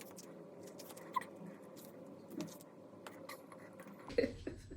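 Faint handling sounds: scattered soft clicks and rustles over a faint steady hum, with a low rumble coming in near the end.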